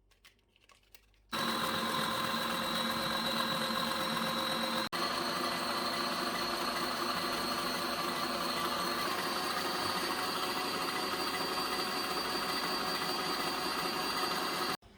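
Electric kitchen blender motor running steadily with a high whine. It starts about a second in, cuts out for an instant near five seconds, runs slightly higher in pitch from about nine seconds, and stops just before the end.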